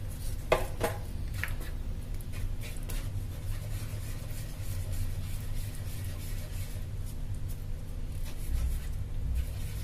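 A wooden spatula stirring and scraping through thick custard in a metal pan, with two sharp knocks against the pan about half a second in, then light rubbing and scraping. A steady low hum sits underneath.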